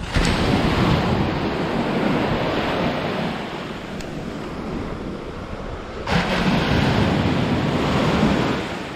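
Baltic Sea surf washing in at the shoreline in two surges. The first breaks just after the start and eases off over several seconds; the second breaks suddenly about six seconds in, then recedes.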